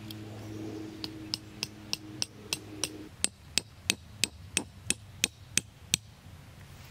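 A metal tent stake tapped into hard, dry ground with a small hammer: about sixteen sharp strikes at an even pace of about three a second, the blows growing louder after about three seconds. A low steady hum stops about three seconds in.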